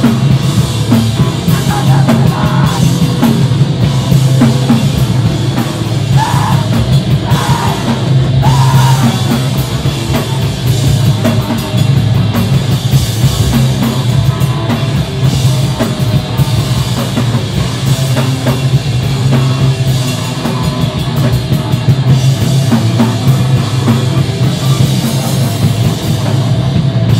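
A live screamo band playing loud and fast, with electric guitar, bass guitar and a drum kit with busy cymbals.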